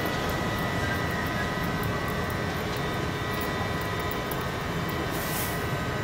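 London Underground train's steady hum and whine, with several high tones held at one pitch.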